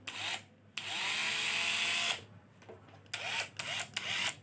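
Hoki 802 corded electric screwdriver's motor running in forward at its first, slowest speed setting: a brief blip, then a run of about a second and a half that spins up and winds down, and a few shorter bursts near the end.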